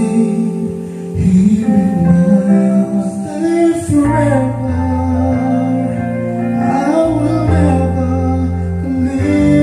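Karaoke song played back by a Platinum Reyna SE karaoke player: backing music with a steady bass and guitar-like accompaniment, and a voice singing the melody over it.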